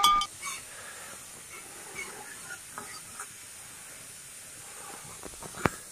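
Food frying in an iron kadhai over a wood fire: a faint, steady sizzle, with a steel ladle scraping and clinking against the pan now and then and one sharper knock near the end.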